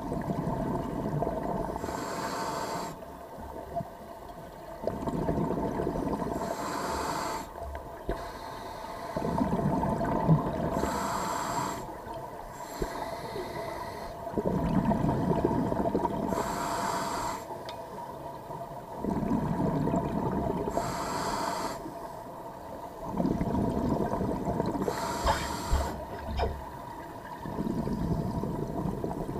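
Scuba diver breathing through a regulator underwater: slow, regular breaths about every four to five seconds, each a hissing draw followed by a rushing, gurgling stream of exhaled bubbles.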